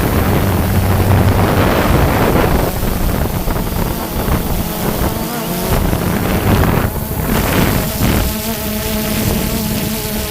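Quadcopter drone's propellers buzzing at a steady pitch, with wind rushing over the microphone; the rushing is louder for most of the first eight seconds, then eases and leaves mainly the buzz.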